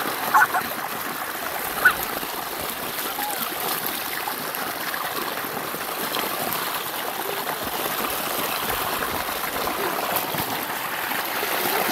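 Shallow stream water running steadily over mud and stones, with two brief sharp sounds in the first two seconds.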